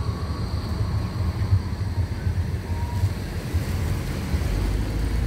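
Road traffic at a roundabout: cars and a tram moving through, a steady low rumble.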